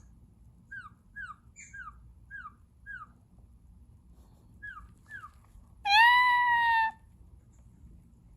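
Bird calls: a run of short chirps, each falling in pitch, about two a second, then after a pause one loud, long call of about a second, slightly falling.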